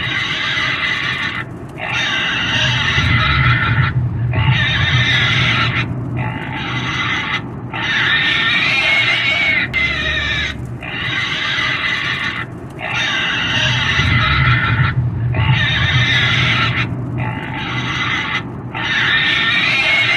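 Pig squealing: a run of high, wavering screams, each about one and a half to two seconds long with short breaks between, repeating evenly, over an intermittent low rumble.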